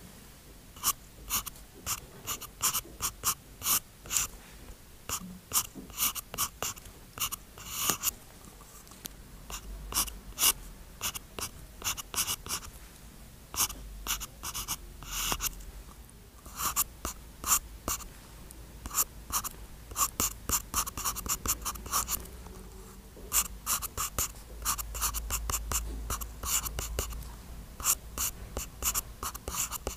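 Stylus nib scratching across a paper-textured screen protector on a tablet, writing characters in quick, irregular strokes with brief pauses between them.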